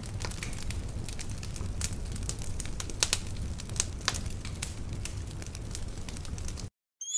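Fire crackling: a steady low rumble with scattered sharp pops, cutting off suddenly near the end.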